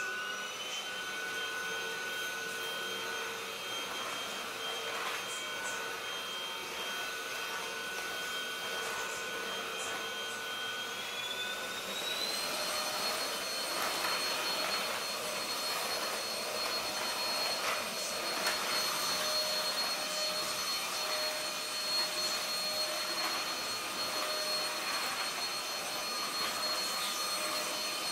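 Hosome cordless stick vacuum cleaner running on a tiled floor: a steady motor whine at its lowest speed, then, about twelve seconds in, switched up to maximum power, the whine rising in pitch and getting a little louder and holding there.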